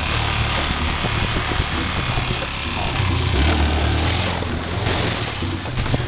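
Small motorcycle engine running as the bike rides along a rough dirt track, under a loud, steady rush of wind on the microphone. The low engine note shifts and grows stronger about halfway through.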